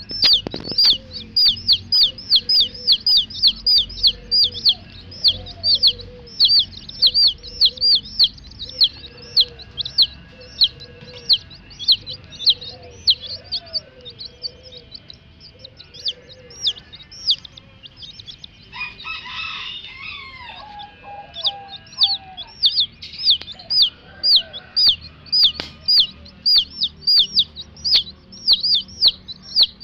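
Baby chicks peeping steadily, short high calls that slide down in pitch, about three a second, with a hen's low clucks underneath. A louder, harsher call with falling pitch comes about twenty seconds in.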